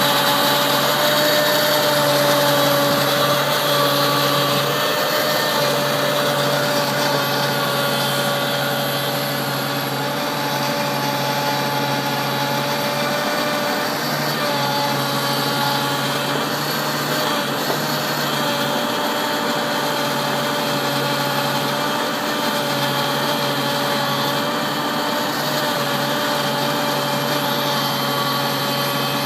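New Holland TV-140 bidirectional tractor's diesel engine running steadily, with a steady whine over it.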